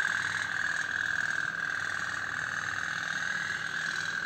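Tin pop-pop toy steam boat running in a steel bowl of water, its candle-heated boiler making a rapid, steady putt-putt buzz.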